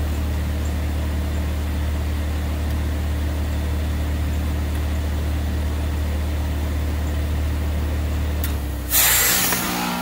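2012 Bryant heat pump outdoor unit running with a steady low hum. Near the end the hum drops and a sudden loud rushing hiss of refrigerant breaks out as the unit is forced into defrost, the reversing valve shifting over.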